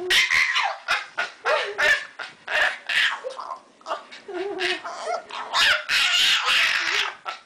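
A dog giving a run of short barks and yips mixed with whining, which cuts off abruptly at the end.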